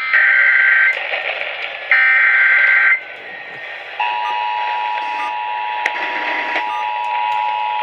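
Emergency Alert System broadcast signals heard over the radio. First come two one-second bursts of the warbling SAME data header, a second apart. About four seconds in, the steady two-tone EAS attention signal (853 and 960 Hz) starts and holds over faint static.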